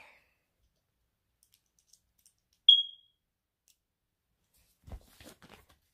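Smoke detector giving a single short, high-pitched chirp, the loudest sound here. About two seconds later comes a brief patter of small plastic clicks as Lego pieces are handled.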